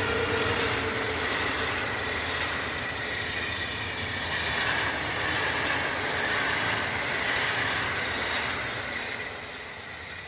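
PKP Intercity passenger train passing at speed on the adjacent track: a steady rumble of wheels on rail with a high, wavering whine over it. It fades away about nine seconds in as the train clears.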